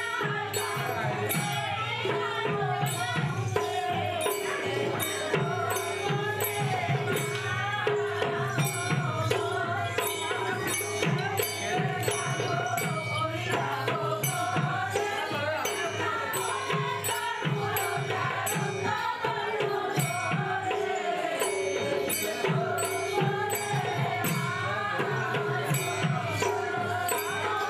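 Manipuri Raas Leela devotional music: sung melody over a held drone note, with hand-drum strokes and bright jingling percussion keeping a steady, even beat.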